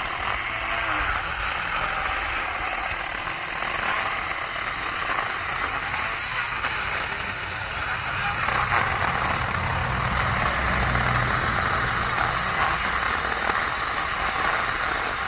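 Battery-powered 4-inch mini cordless chainsaw running steadily as its chain cuts through the trunk of a small tree near its base.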